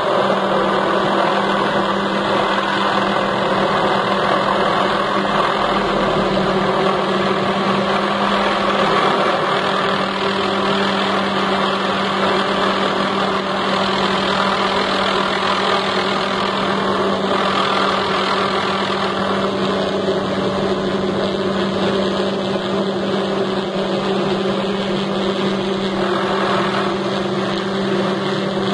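Helicopter hovering overhead with a slung long line, its rotor and engine noise loud and steady over a constant hum.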